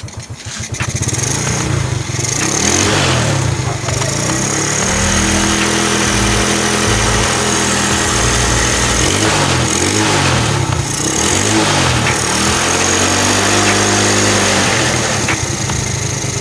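Honda XRM motorcycle's single-cylinder four-stroke engine running after a top overhaul with a new cylinder block, revved up and down several times.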